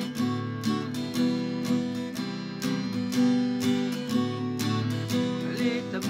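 Acoustic guitar strummed in a steady rhythm, two or three strokes a second, playing the chord intro of a song.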